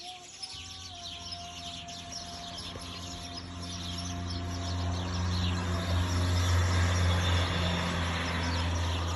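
Small birds chirping while a motor vehicle passes: a low engine hum with tyre noise builds, is loudest about six to eight seconds in, and fades near the end.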